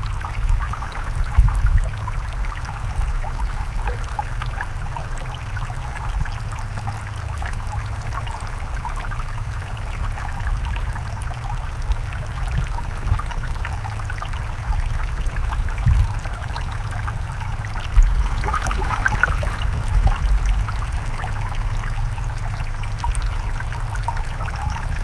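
Stream water running and trickling in a steady bubbling wash, with a fluctuating low rumble underneath and a few dull thumps, one about a second and a half in and two more between about 16 and 18 seconds in.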